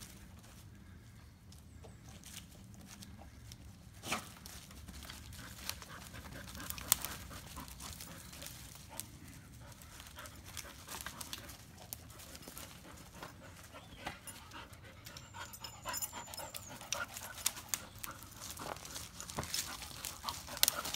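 A dog panting as it sniffs and pushes through leafy ground cover, with scattered short clicks and rustles; the sharpest clicks come about four and seven seconds in.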